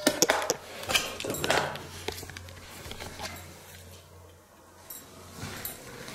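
Several sharp knocks and clinks in the first two seconds, then sparser and quieter ones, over a faint low hum.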